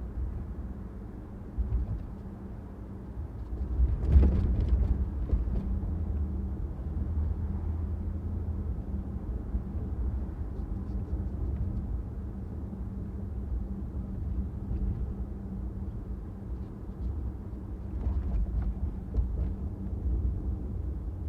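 Car on the move: steady low road and engine rumble with a faint steady hum. A sudden loud thump comes about four seconds in, and a few faint clicks near the end.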